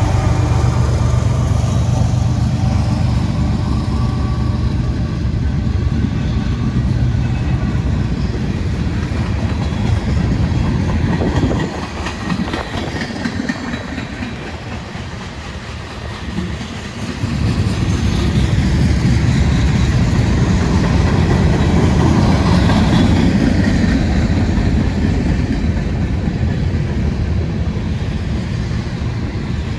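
Cars of a CSX freight train rolling past on the rails: a steady low rumble that drops to a quieter stretch about twelve seconds in and builds back up about five seconds later.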